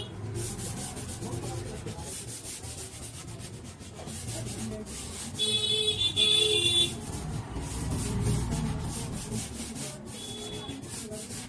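Repeated scraping strokes of a metal blade on the wooden harmonium case, along the inlay border strip. A brief high-pitched tone sounds about halfway through, with background voices.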